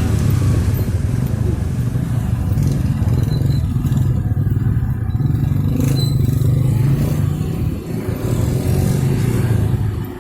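Engines of motorcycles and cars running at low speed in jammed traffic: a steady, loud low rumble throughout.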